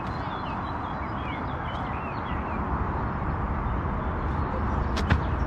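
Wind rushing on the microphone as a steady low noise, with small birds chirping in the first half and a single sharp knock about five seconds in.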